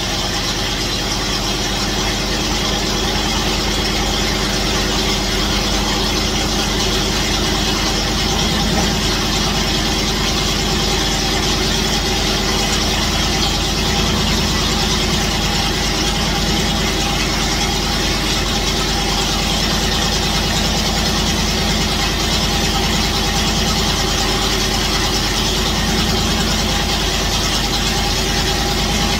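Car engine running on a newly installed 600 cfm carburetor, idling steadily.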